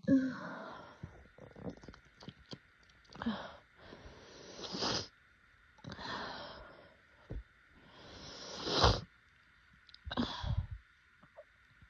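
Rapid allergy sneezing fit: about six forceful sneezes in quick succession. A couple are preceded by a rising, gasping in-breath that builds up to the sneeze.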